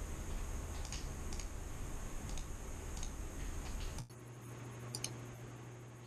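A handful of scattered single clicks from working a computer mouse and keyboard, over a low steady room hum that changes suddenly about four seconds in.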